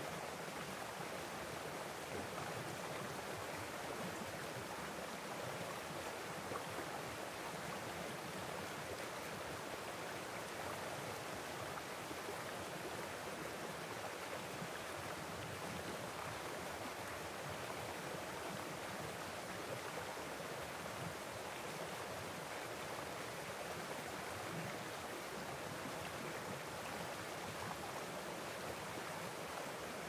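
Mountain stream running over a small cascade between boulders: a steady, even rush of flowing water.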